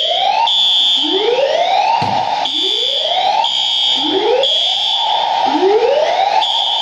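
Fire alarm sounders of an FM200 fire-suppression system sounding during a test. A rising sweeping tone repeats about every one and a half seconds over a high-pitched pulsing beep that comes about once a second.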